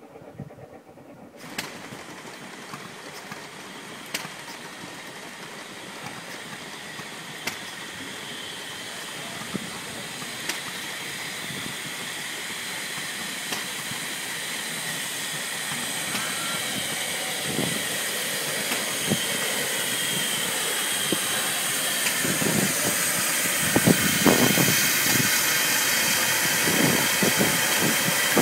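SECR P-class tank locomotives steaming slowly into a station: a steady hiss of steam that grows gradually louder as they approach, with scattered sharp clicks and, in the last few seconds, heavier low knocks as the engines come past.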